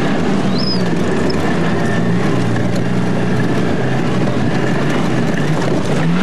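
Alfa Romeo Alfasud's flat-four engine running steadily under load, heard from inside the cabin, with tyre and road noise; the engine note climbs near the end.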